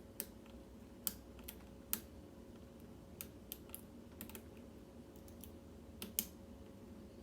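Light, irregular metallic clicks of a lock pick working the pins inside a Kwikset SmartKey Gen 3 lock cylinder during picking.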